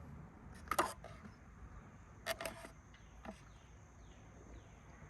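A few sharp clicks and taps as a set of needle nose pliers is handled, the loudest about a second in and two more close together a little past two seconds.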